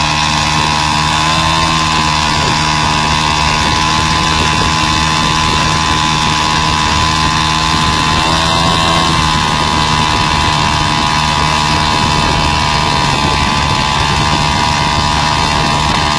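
Motorcycle engine driving the propeller of a homemade light aircraft, running at a steady speed. Its pitch lifts slightly twice, about a second and a half in and again about eight and a half seconds in.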